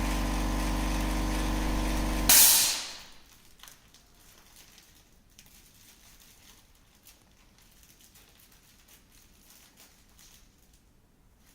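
Vacuum leak tester's pump running with a steady hum, then stopping about two seconds in as air rushes back into the vacuum chamber in a short, loud hiss that dies away within a second. Faint small clicks follow.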